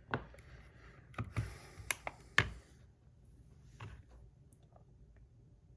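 Small metal fidget spinner parts being handled and set down: a few sharp clicks and taps, the loudest about two and a half seconds in.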